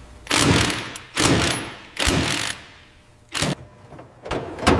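A run of short knocks and clunks with bursts of noise, about six in all, each fading quickly, with a sharp knock about three and a half seconds in.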